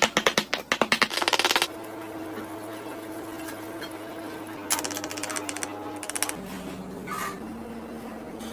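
Steel cleaver chopping rapidly on a plastic cutting board, mincing raw shrimp: a fast run of sharp knocks, about eight a second, that stops about a second and a half in. A second run of quick knocks follows about five seconds in.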